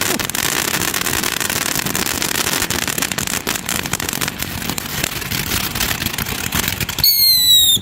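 A MagValue Vancation fountain firework spraying with steady crackling and popping. About seven seconds in, one of its whistles starts, a high shrill tone falling slightly in pitch.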